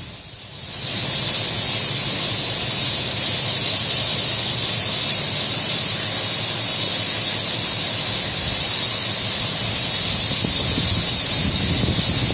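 Spray nozzles of an automatic touchless car-wash gantry hissing steadily as they jet water and foam onto a car. The hiss is briefly quieter about the first second, then holds even.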